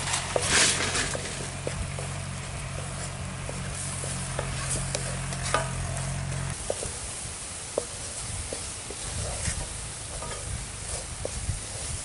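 Metal spatula scraping and tapping against an iron kadai as a wet coconut, sugar and semolina laddu mixture is stirred over a wood fire, with a soft sizzle as the water cooks off and the sugar melts.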